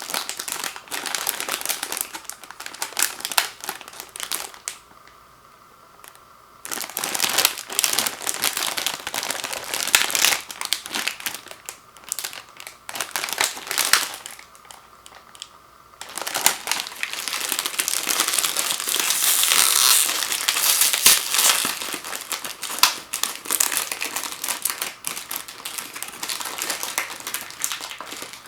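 Plastic cookie packaging crinkling as it is opened and handled. It comes in bursts with two short pauses, then runs almost without a break over the last third.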